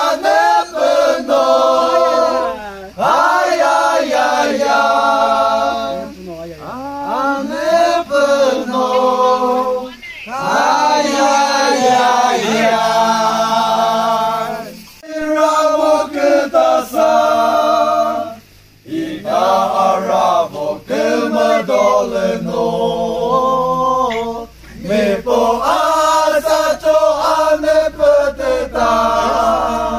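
A group of young men singing together without instruments, in held phrases of a few seconds broken by short pauses for breath.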